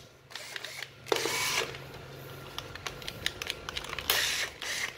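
Small 9.6 V cordless drill-driver (CDD-96F) motor running in two short bursts, each about half a second, as the trigger is squeezed and released, with light clicks of handling in between. The trigger has no speed control: it simply runs when squeezed.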